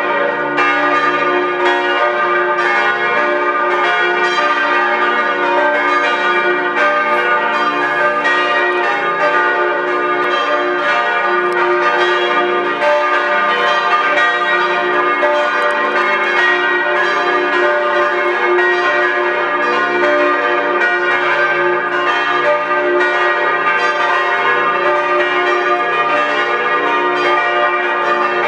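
Full peal of the church tower's bells swinging together, strokes overlapping in a continuous, uneven stream of ringing tones at a steady loudness.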